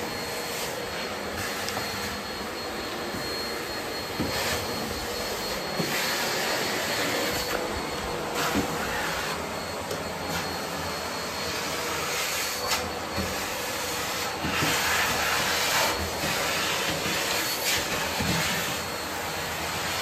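Bosch BGS21X320 bagless canister vacuum cleaner running, a steady rush of air with a faint high whine, the hose sucking along a door frame and wall. The suction noise swells and eases a few times as the hose end moves against the surfaces.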